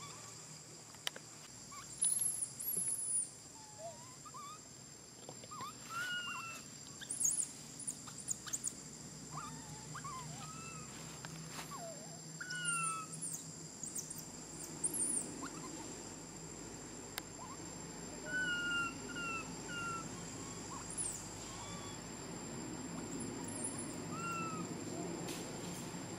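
Infant macaque crying in short, high whimpering squeaks every second or two, each one falling slightly in pitch, as a hungry baby denied milk by its mother. A steady high insect drone and a few faint bird chirps run underneath.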